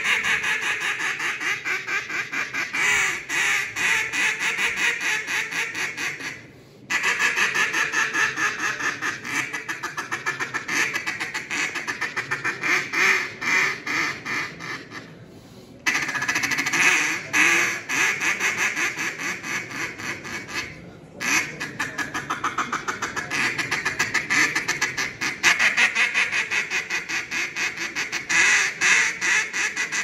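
Mallard duck call blown in long runs of rapid quacks, about four or five a second, broken by three short pauses.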